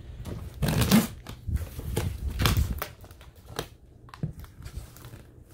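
Scissors cutting and tearing through clear plastic wrap on a cardboard box: several scratchy, crinkling strokes, strongest in the first three seconds and fainter after.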